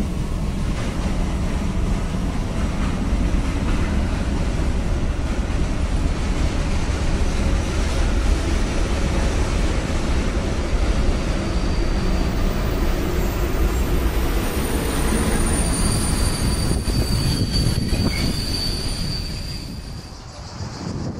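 Intermodal container freight train rolling past behind a class 37000 electric locomotive, with a steady rumble of wheels on rail. About halfway through, a high wheel squeal joins in and lasts several seconds, and the sound dips briefly near the end.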